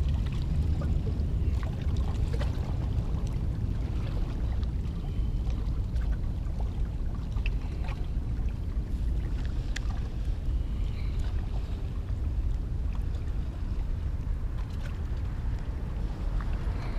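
Steady low rumble of wind buffeting a chest-mounted action camera's microphone, with a few faint ticks.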